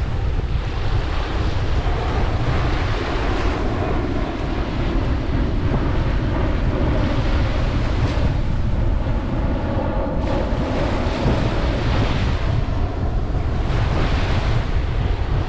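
Ocean waves breaking and washing up a beach in repeated surges, over a steady low rumble of wind on the microphone.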